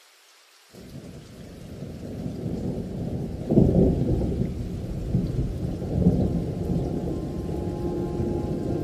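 Thunder rolling over steady rain. A low rumble sets in about a second in and builds, with its loudest clap a little before the middle and another swell about two-thirds of the way through.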